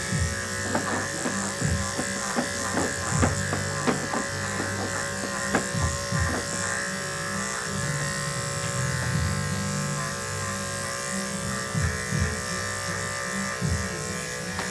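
Electric dog grooming clippers running with a steady hum, with irregular short clicks over the first half.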